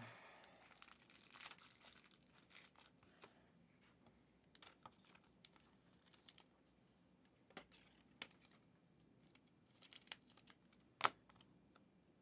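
Faint tearing and crinkling of trading-card pack wrappers being opened, then cards being handled with scattered soft ticks and rustles. One sharper tick comes about 11 seconds in.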